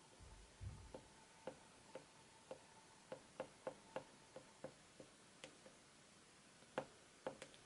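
Caran d'Ache oil pastel sticks tapping and dabbing on drawing paper: light, irregular ticks, a few per second, with a soft low thump about half a second in.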